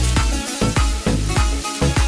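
Background music with a steady, quick beat.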